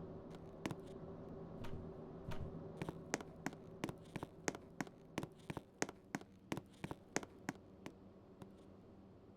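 Ceiling fan with a faint motor hum that fades, and a regular ticking at about three a second that slowly spaces out toward the end.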